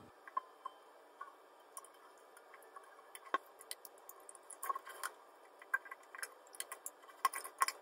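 Faint, scattered small clicks and taps of a pencil being strapped across a ukulele neck with rubber bands as a makeshift capo, with one sharper knock a little over three seconds in.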